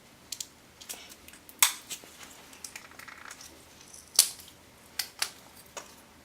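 Scattered sharp clicks and snaps of small plastic parts being handled and pried as an RC car's electronic speed control is worked loose from its mounting plate. The two loudest snaps come about a second and a half in and about four seconds in.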